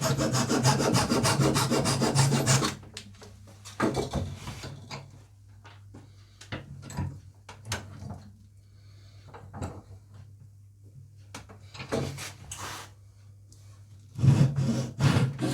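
Hand saw cutting through a small piece of wood in fast back-and-forth strokes for the first few seconds, then stopping. Scattered knocks and handling of the wood follow, and short bursts of sawing return near the end.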